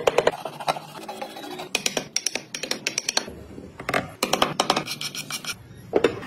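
Hand tool scraping and scratching along wood in several short runs of quick strokes, with pauses between them.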